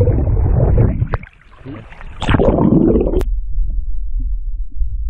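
River water sloshing and gurgling as a landlocked salmon is held in the current to revive it, with a louder splash a little over two seconds in. The sound cuts off abruptly after about three seconds, leaving a low steady rumble.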